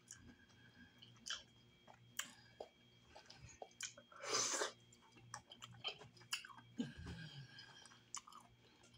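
Close-miked chewing of boiled chitterlings (pork intestines): soft wet mouth clicks and smacks, with one longer, louder sound about four and a half seconds in as a long piece goes into the mouth.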